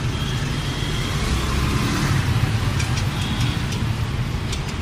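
Steady low rumble of motor traffic, with a few faint light clicks about three seconds in and again near the end.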